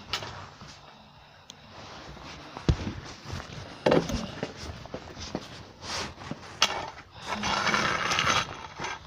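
Hard parts of a vacuum cleaner being handled: irregular knocks and clicks, with sharp knocks about three, four and six and a half seconds in, and about a second of rattling and scraping near the end.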